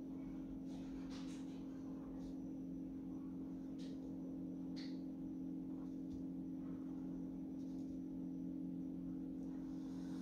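Faint scratches of a felt-tip marker drawing short strokes on paper, over a steady low hum.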